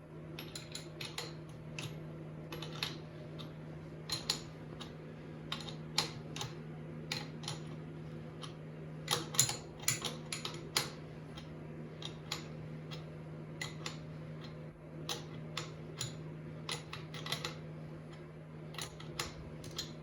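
Irregular metallic clicks and clinks of a 15mm spanner working a bicycle pedal onto its crank thread, several a second at times with pauses between, over a steady low hum.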